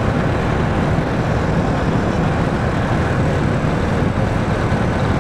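Motorcycle being ridden along a road: a steady engine drone under an even rush of wind and road noise.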